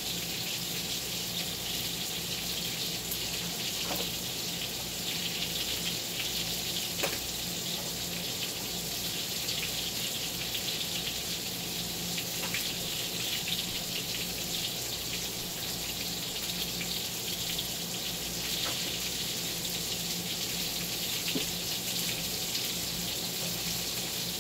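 Veal cutlets frying in a skillet on a gas burner: a steady sizzle with a few scattered pops. A steady low hum runs underneath.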